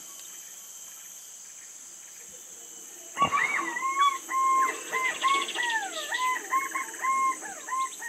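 Steady high drone of forest insects. About three seconds in there is a knock, then a run of warbling whistled notes that glide up and down: green pigeon (punai) calls.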